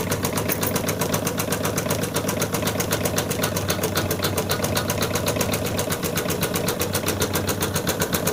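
Computerised embroidery machine stitching a zigzag satin-stitch border, its needle striking in a rapid, even rhythm.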